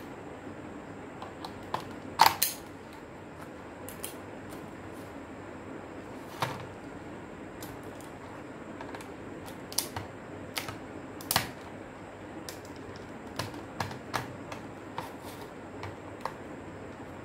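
Irregular light clicks and knocks of hand tools and plastic being handled: screwdrivers picked out of a pile of tools and set to the blue plastic case of a portable CD player, over a steady hiss. The loudest knock comes about two seconds in, with a run of clicks around the middle.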